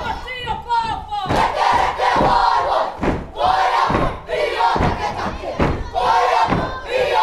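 A kapa haka group performing a haka: many voices chanting and shouting in unison, punctuated by sharp stamps and slaps about once a second.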